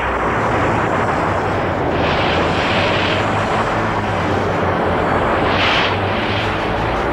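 Sound effect of a spaceship caught in a magnetic storm: a loud, steady rushing noise over a low hum, swelling into brighter hiss twice, about two seconds in and again near the end.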